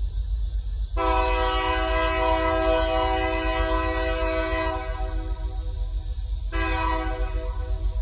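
An approaching EMD GP-series diesel locomotive sounds its multi-chime air horn: one long blast from about a second in to about six and a half seconds, then a short blast near the end, over a steady low rumble.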